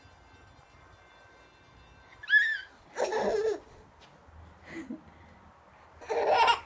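A toddler squealing and shrieking with laughter in short bursts: a high squeal about two seconds in, a louder shriek right after it, and another loud shriek near the end.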